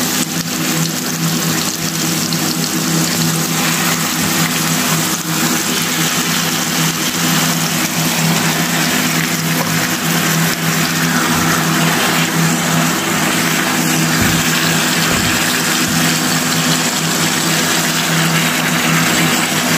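Beef pieces frying in hot sunflower oil and butter in a frying pan: a loud, steady sizzle as the raw pieces are laid in.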